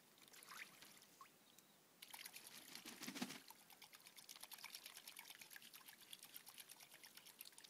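Faint water splashing and dripping as mallard ducks bathe in a small pool, picking up about two seconds in.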